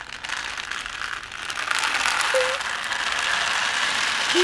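Dense, continuous rattling and crackling, like a shaker or ratchet, that builds up about a second in and then holds steady: a noise made to stand for a shower of meteors.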